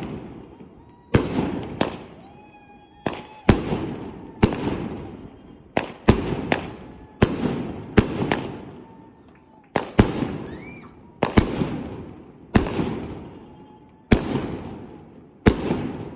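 A 25-shot firework cake firing its shots one after another: about seventeen sharp bangs at uneven gaps of roughly a second, each trailing off in a fading echo.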